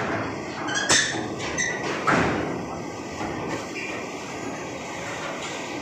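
Trucks driving onto a ferry across its steel loading ramp and grated deck: a steady rumble of diesel engines and tyres on metal, with a sharp metallic bang about a second in and a louder one about two seconds in as wheels cross the steel plates.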